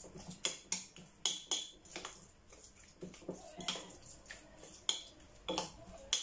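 A utensil clinking and scraping against a glass mixing bowl as a marinade is stirred: a string of irregular sharp clinks.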